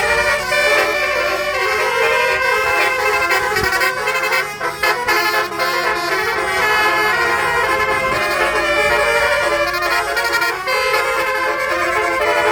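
Basuri musical bus horns playing melodies, several horns sounding at once in stepped tones, with a short break about four and a half seconds in.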